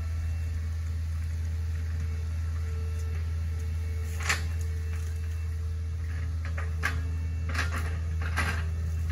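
Hitachi ZaXis 48U mini excavator's diesel engine running with a steady low drone as it digs out a ditch, with a few short knocks from the working bucket, the loudest about four seconds in and more near the end.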